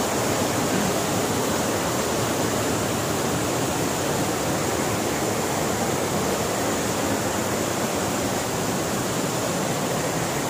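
Steady, unbroken rush of water flowing over the rocks of a mountain stream and waterfall.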